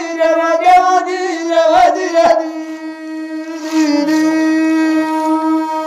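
A man singing a line of a chanted folk tale over a steady, buzzing instrumental drone, with a few light taps. The voice stops after about two seconds and the drone carries on alone.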